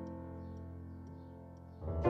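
Background piano music: a held chord slowly fading away, then the next chord swelling in near the end.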